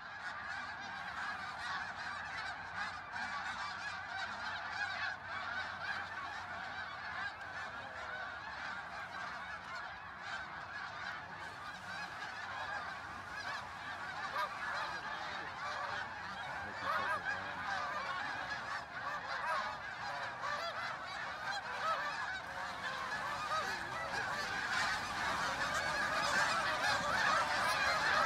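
A large flock of snow geese calling all at once in a dense, continuous chorus of honks, swelling louder near the end as birds lift off the water.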